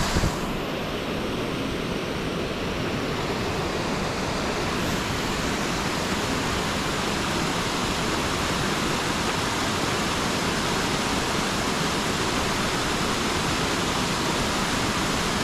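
Water spilling over small rock-ledge waterfalls into a creek pool: a steady, unbroken rush.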